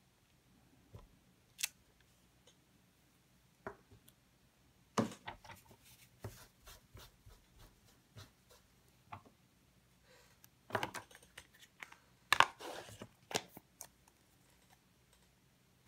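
Handling sounds of a clear acrylic stamp block and cardstock: scattered light clicks, taps and paper rustles as the stamp is pressed, lifted off and set down, the sharpest around five seconds and twelve seconds in.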